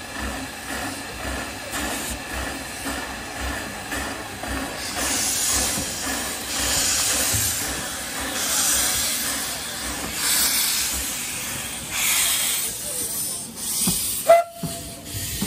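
Narrow-gauge steam locomotive hissing steam in repeated bursts over a steady background of the engine at work. Near the end comes one short, sharp high-pitched note.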